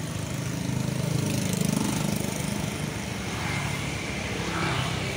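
A motor vehicle's engine running, growing louder about a second in and then easing off.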